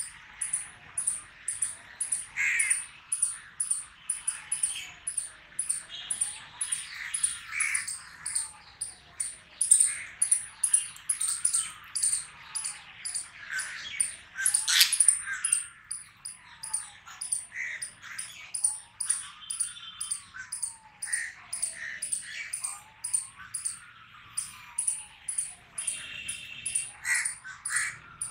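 Rapid, even high-pitched chirping at about three chirps a second, with crows cawing now and then over it and a faint tone that slowly rises and falls over and over.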